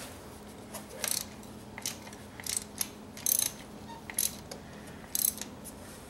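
Hand ratchet on a spark plug socket and extension clicking in short bursts about once a second as it is swung back and forth, backing a spark plug out of a Ford 3.5 L EcoBoost cylinder head.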